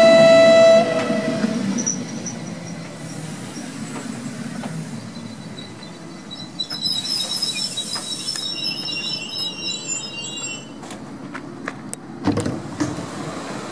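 Train noise dying away, opening with a short, loud steady tone like a horn that cuts off within the first second. Quieter ambience follows, with high chirping for several seconds in the middle and a few sharp clicks and a thump near the end.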